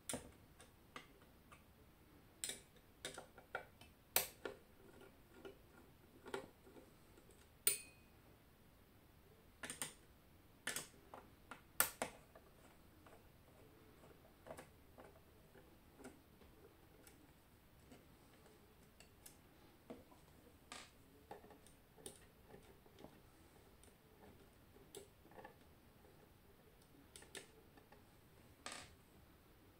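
Fingernail picking and scratching at a sticker on a CB radio's metal case: faint, irregular small clicks, busier and louder over the first dozen seconds and more scattered after that.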